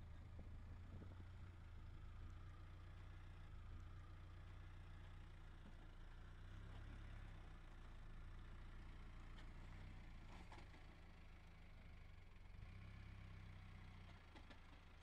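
Land Rover Discovery's 300Tdi 2.5-litre four-cylinder turbodiesel running faintly at low revs as the truck crawls slowly over rough off-road ground, a low rumble that swells a couple of times with the throttle.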